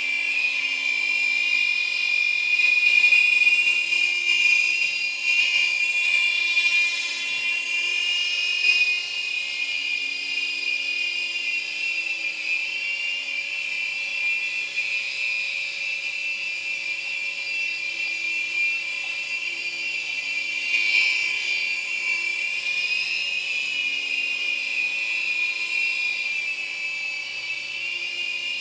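Amewi Firestorm Pro micro RC helicopter flying: its battery-powered electric motors and rotors give a steady high-pitched whine that wavers a little in pitch and swells briefly a couple of times.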